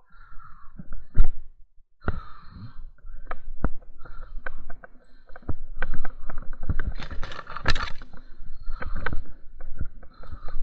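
Leafy branches rustling and twigs cracking and snapping as a person pushes through dense undergrowth. It comes in irregular clusters of sharp snaps. The first two seconds are nearly quiet apart from one sharp crack.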